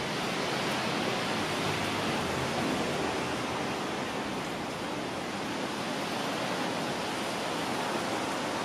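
Steady rain falling, an even hiss with no distinct events.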